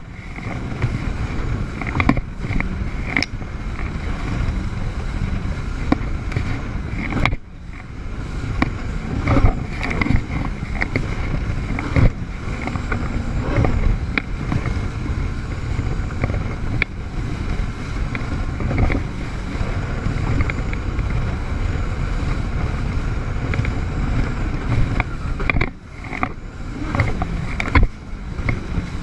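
Jet ski running at speed over the water: a steady engine and water rush, broken by sharp knocks and two brief drops in sound, about a quarter of the way in and near the end.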